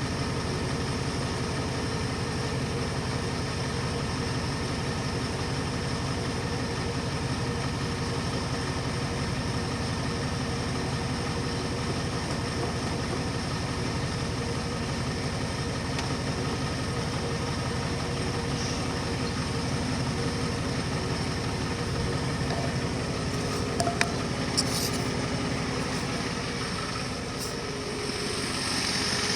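Yard wrecker's engine idling steadily with an even, rapid beat. The owner hears a new, louder knock in it and says it sounds like something trying to fall off.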